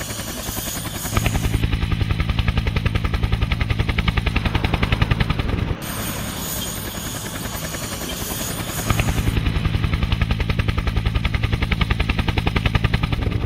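Helicopter rotor blades beating in a fast, even rhythm. The sound gets louder about a second in, drops suddenly near the middle, and gets louder again about two-thirds of the way through.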